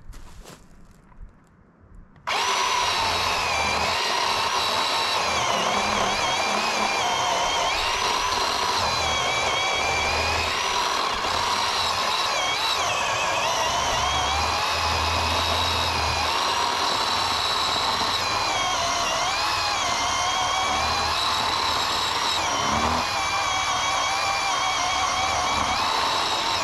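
Bauer 20V cordless electric chainsaw with a 10-inch bar, switched on about two seconds in and cutting through a log under steady load: a loud, continuous motor-and-chain whine whose pitch wavers as the chain bites into the wood.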